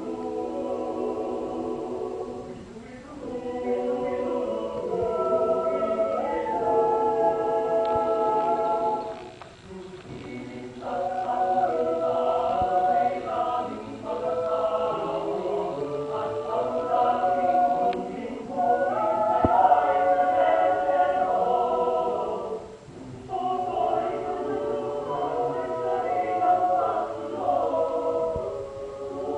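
Mixed choir singing a cappella in held harmony chords, phrase after phrase, with brief breaks about 3, 10 and 23 seconds in.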